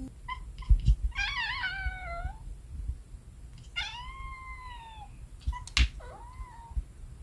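Orange-and-white house cat meowing: two short chirps, then a long wavering meow, a meow that rises and falls, and a short one near the end. A couple of low thumps come about a second in, and a sharp click just before the last meow.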